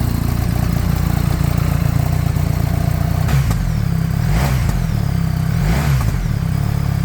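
BMW R 1300 GS boxer-twin engine idling through a REMUS aftermarket exhaust, blipped three times, at about 3, 4.5 and 6 seconds in.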